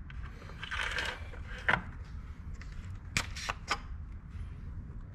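A car engine's plastic oil filler cap being twisted off and handled: a rustle, a sharp click, then three quick clicks a little past three seconds in, over a low steady hum.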